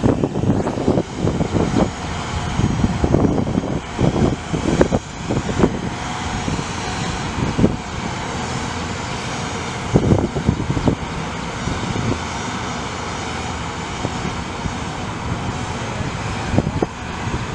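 The fire truck's Cummins ISM 10.8 L inline-six turbo diesel running steadily, with wind buffeting the microphone in gusts, mostly in the first few seconds and again about ten seconds in.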